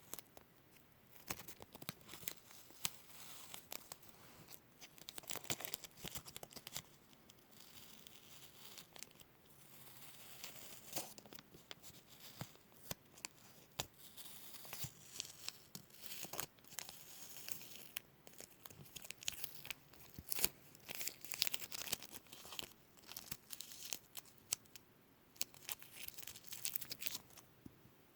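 Adhesive tape being peeled off a surface in a series of short pulls, each a crackling, tearing rip, with sticky tacky sounds between them.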